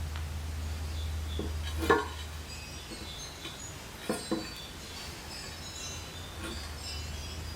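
Steel parts being handled and set in place, giving light metallic clinks and knocks: one sharper clink about two seconds in and two quick ones together about four seconds in, over a low steady hum.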